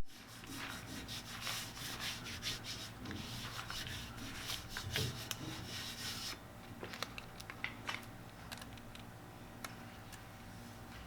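Faint rubbing and scraping by hand on a surface, with quick irregular strokes, stopping about six seconds in; after that only a few light clicks.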